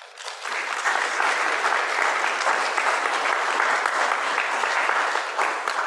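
Congregation applauding, a dense steady clapping that starts at once and begins to die away near the end.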